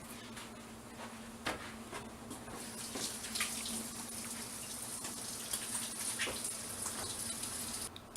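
Tap running into a sink while hands are washed under it, the stream splashing irregularly; the water is shut off near the end.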